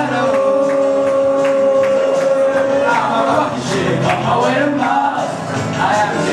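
Male voices singing into microphones over music with a steady beat, holding one long note through the first half.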